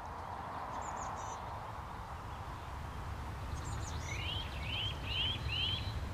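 Small birds calling: a few short high notes, then a run of four quick rising chirps about four seconds in, over a faint low rumble.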